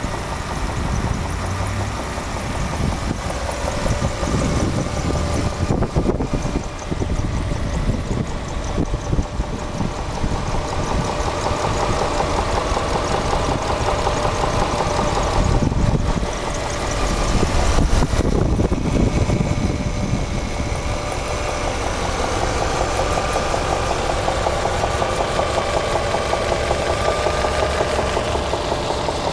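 A 4.7-litre engine idling at operating temperature with a repeated knock, which the owner notes appears once the engine is warm. The sound swells briefly a few times.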